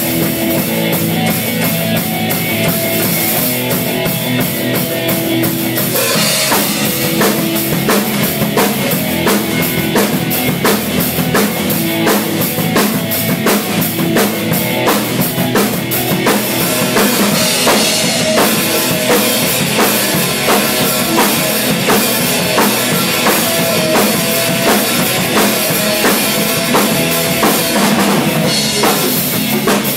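Rock drumming on an acoustic drum kit, kick, snare and cymbals, played along with a rock song that carries guitar. The drum hits grow denser and more driving about six seconds in.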